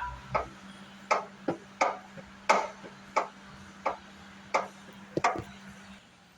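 Clutch pedal being pumped over and over while bleeding the clutch hydraulics, giving about ten sharp clicks, roughly one every 0.7 seconds. A steady low hum runs under them and stops near the end.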